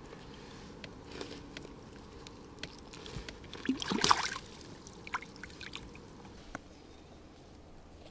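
Water splashing and sloshing as a small bream is let down into the water, loudest about four seconds in, among small knocks and rustles of handling.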